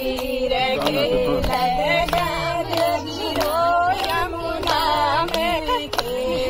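Women singing a Kumaoni devotional folk song in a wavering melody over regular percussive beats.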